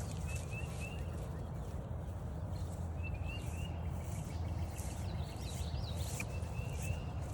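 Footsteps crunching on a trail at a steady walking pace, with a songbird singing a short phrase of three quick rising notes three times, and another bird's brief call about five seconds in.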